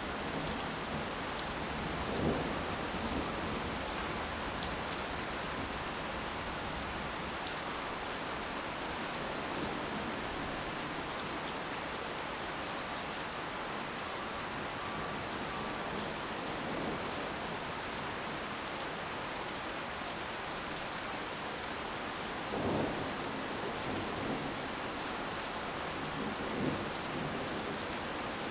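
Heavy rain falling steadily in a front yard, an even hiss of rain on surfaces, with a few brief louder thumps about two seconds in and again near the end.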